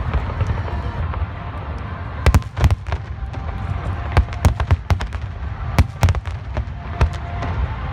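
Aerial fireworks bursting: a run of sharp bangs at irregular intervals, some in quick pairs, over a continuous low rumble of booms.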